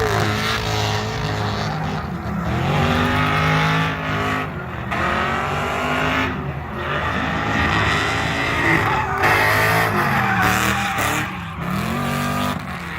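Car engine revving hard under acceleration. Its pitch climbs and then drops off sharply every two to three seconds, as it would through gear changes.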